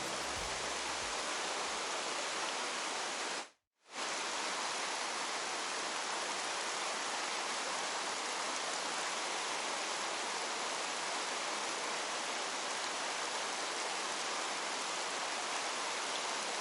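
Mountain stream water rushing steadily, an even full hiss. The sound drops out completely for a moment about three and a half seconds in.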